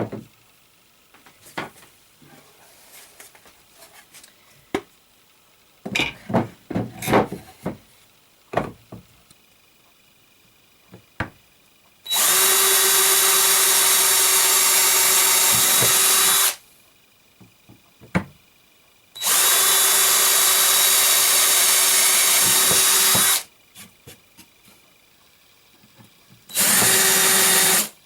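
Power drill running at a steady speed in three bursts: about four seconds, then about four seconds, then a short one near the end, each starting and stopping abruptly. Before the first burst there are scattered knocks and clatter of wooden pieces being handled.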